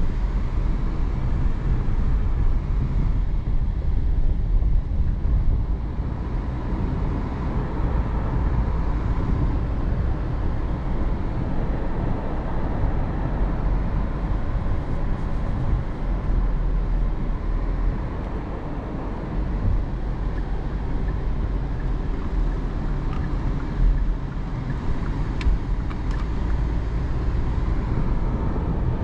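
Cabin noise of a 2022 Hyundai Tucson with a 1.6-litre engine on the move: a steady low rumble of engine and tyres on the road, heard from inside the car.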